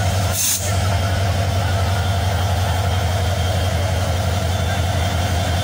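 Diesel-electric locomotive idling at a standstill: a steady low engine hum, with one short hiss of air about half a second in.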